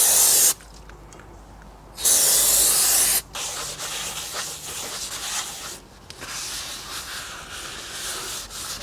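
Two bursts of aerosol spray, a short one at the start and a longer one of about a second soon after, followed by steady rubbing and wiping, as in cleaning the protective coating off a new brake disc.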